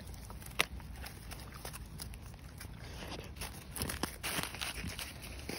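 A Labrador chewing at a thin dry branch, with one sharp snap about half a second in, then scattered crackles and crunching as it walks off through wet snow.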